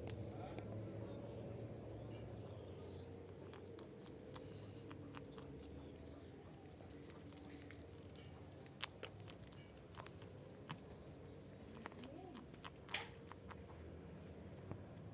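Short high chirps repeating in a steady, even rhythm, about two a second, typical of an insect chirping, with scattered sharp clicks over a low steady hum.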